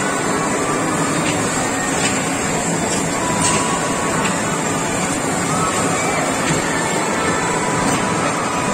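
Steady, loud din of an indoor amusement-park ride hall while a kiddie train ride runs on its track, with a few faint clicks.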